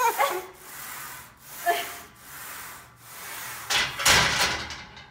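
One-arm Smith machine rows: short strained vocal sounds from the lifter and repeated rubbing and sliding noise, rising and falling about once a second. A louder scrape or clatter comes about three-quarters of the way through.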